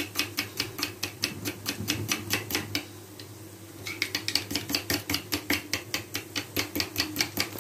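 Metal spoon clinking against the inside of a ceramic cup in quick, even strokes, about six a second, as spiced yogurt is stirred. The clinking stops for about a second a little past the middle, then picks up again.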